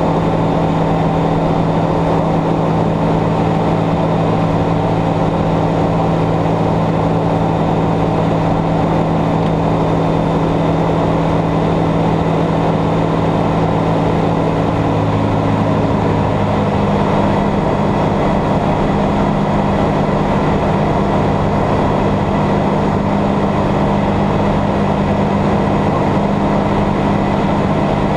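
Ultralight aircraft's piston engine and propeller running steadily at flight power, heard from inside the cockpit. The engine note shifts a little over halfway through.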